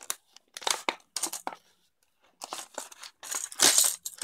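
A stiff plastic blister pack being slit with a folding knife and torn open, crackling and crinkling in short irregular bursts. The loudest, longest crinkle comes about three and a half seconds in, as the plastic is pulled apart.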